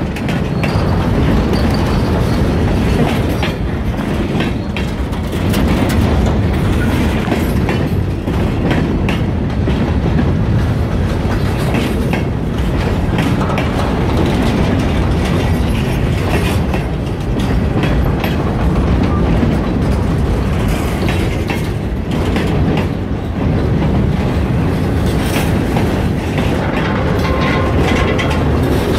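Freight train boxcars rolling past close by: a steady loud rumble with the clickety-clack of steel wheels clattering over the rails.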